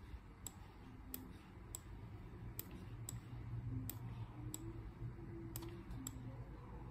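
Computer mouse clicking: faint, sharp clicks at irregular intervals of about half a second, over a low steady hum.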